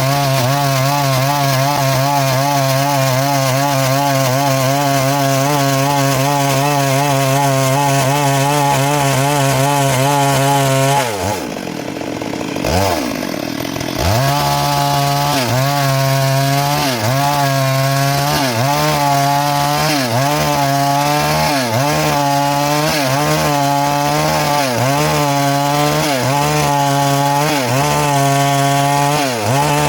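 Stihl MS 382 two-stroke chainsaw running at high revs while cutting wood. About eleven seconds in the revs drop away briefly, then pick up again. After that the engine note dips and recovers about once a second.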